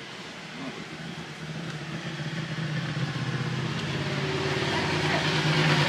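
A motor vehicle's engine running with a steady low hum, growing louder through the second half as it approaches.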